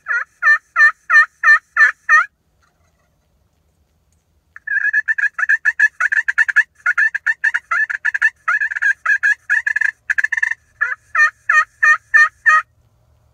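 Hen turkey calling from a hunter's turkey call: a run of about eight yelps, then about six seconds of fast cutting, then six more yelps.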